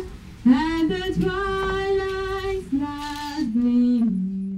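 Women's voices singing a slow, unaccompanied Buddhist devotional chant in long held notes. There is a short breath near the start, and the melody steps down in pitch over the last second or so.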